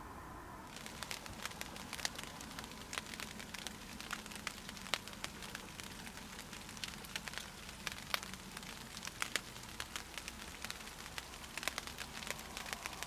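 Dense, irregular patter of small ticks and crackles, like light rain falling, starting abruptly about a second in.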